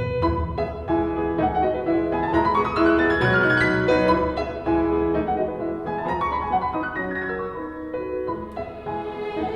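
Instrumental music played through B&W 603 hi-fi loudspeakers: piano in rising runs of notes over a steady bass, with some bowed strings.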